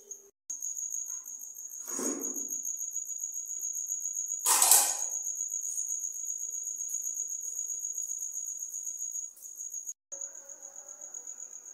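A cricket trilling steadily in a high, rapid pulse. Two brief louder noises cut across it from the dish-washing, one about two seconds in and a louder one just before five seconds.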